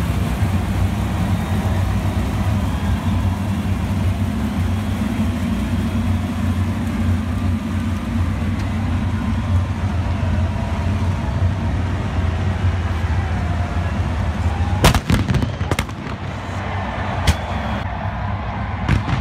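Many 410 sprint car engines running together in a steady low rumble. About 15 seconds in, a quick cluster of sharp firework bangs, followed by single bangs about two and four seconds later.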